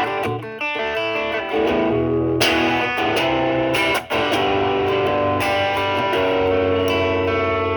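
Stratocaster electric guitar played through an MXR Duke of Tone overdrive pedal in OD mode at full gain, into a Marshall Valvestate's drive channel, with the guitar's volume rolled back to clean the tone up. It plays picked notes and chords and ends on a chord left to ring.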